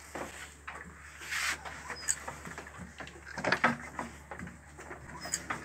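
Irregular metal clanks and knocks as parts of an old stationary diesel engine are handled while it is readied for starting, over a faint steady low hum.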